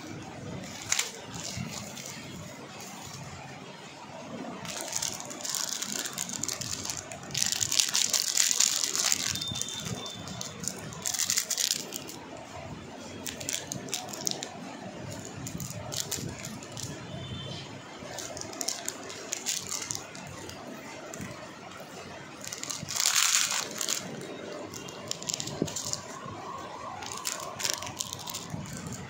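Small clear plastic bags rustling as they are handled, with the small metal jewellery findings inside (earring hooks, shell charms, jump rings) rattling. The rustling comes in irregular bursts, loudest about a third of the way in and again near the end.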